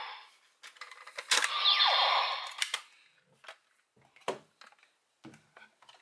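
Hard plastic toy being handled: a cluster of clicks and clatter in the first half, with a short falling electronic tone about two seconds in, then a few scattered single clicks.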